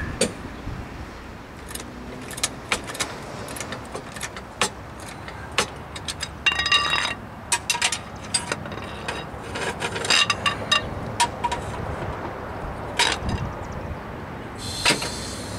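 Irregular metal clicks and clanks of a floor jack being pumped and a steel jack stand being worked loose under a car, with a few short metallic squeaks.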